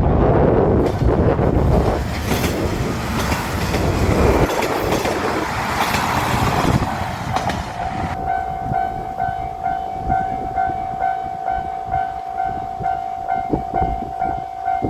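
Diesel railcar train running through a level crossing, a heavy rumble of wheels and engines for the first seven seconds or so. As it draws away, the crossing's alarm bell is left ringing alone in steady, evenly repeated dings, about two or three a second.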